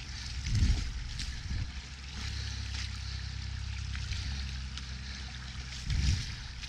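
Shallow floodwater running and trickling over a flooded trail, with a steady low wind rumble on the microphone. Two short, louder low thumps come about half a second in and near the end.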